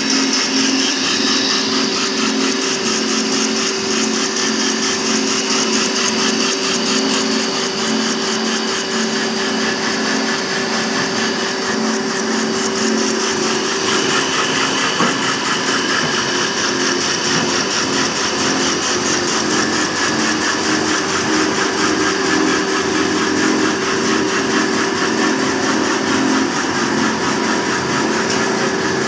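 Industrial carton folding machine running steadily: belts and rollers give a steady hum with a fast, even clatter and a high hiss.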